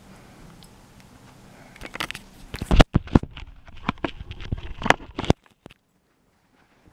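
Handling noise from the camera being moved: a run of knocks, taps and rubbing on the microphone, the loudest about three seconds in. The sound then cuts off to dead silence.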